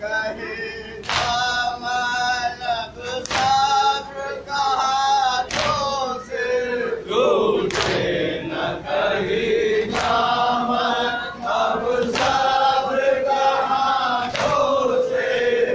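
A crowd of men chanting a Muharram nauha (lament) together, with a sharp unison chest-beating slap (matam) about every two seconds.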